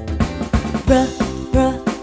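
Upbeat children's background music with a steady beat and a sung or instrumental melody.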